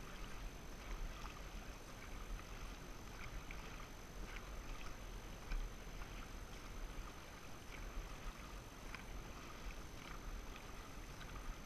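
Dragon boat crew paddling: paddle blades splashing in the water and water washing past the hull, over a steady low rumble.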